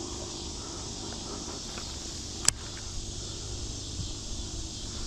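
Steady high-pitched insect chorus from the pond-side brush, with one sharp click about halfway through.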